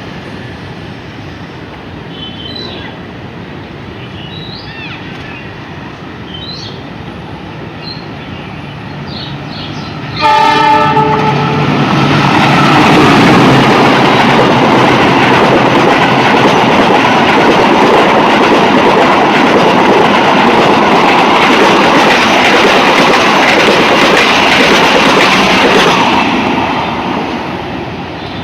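Diesel locomotive gives a short horn blast about ten seconds in, then a locomotive-hauled passenger train passes close by with loud, steady engine and wheel noise for about fifteen seconds, fading near the end.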